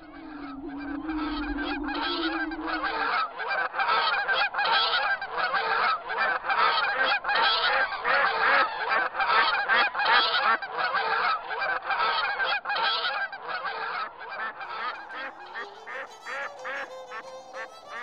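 A flock of geese honking, many calls overlapping in a dense chorus that thins out near the end. Fiddle music comes in as the honking fades.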